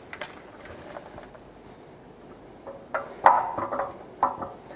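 LED shoebox parking lot light housing knocking and clattering against its pole-top mounting bracket as it is slid on and seated, with a few light clicks first and a cluster of knocks about three seconds in.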